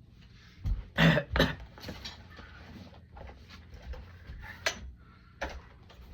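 Two loud coughs about a second in, then scattered light knocks and rustling as a small congregation stands and finds the hymn.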